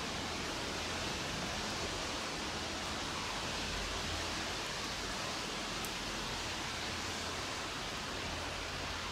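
Steady, even outdoor hiss with a faint low rumble beneath, with no distinct events: ambience in light rain.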